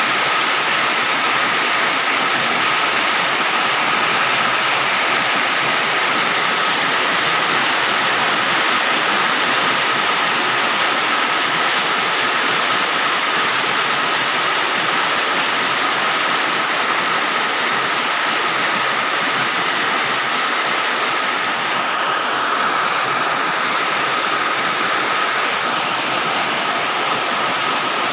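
Rain falling on a galvalume metal sheet roof: a steady, dense hiss of drops with no single hits standing out and a faint steady high tone running through it.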